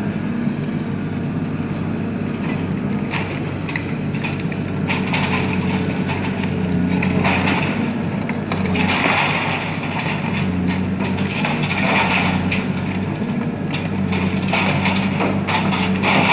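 Long-reach demolition excavator's diesel engine running steadily while its crusher jaws bite into the building's concrete walls, with repeated crunching and falling rubble that grows louder from about five seconds in.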